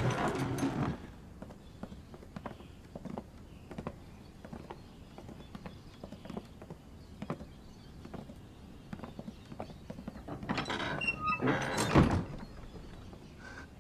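A wooden door knocks open with a thunk. Light footsteps follow, knocking faintly on a wooden floor. About twelve seconds in, a louder scraping ends in a heavy wooden thunk, as of the door being shut.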